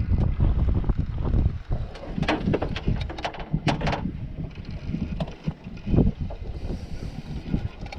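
Wind buffeting the microphone in a heavy low rumble, strongest in the first second or so, with scattered sharp knocks and clicks, the clearest about two to four seconds in and again near six seconds.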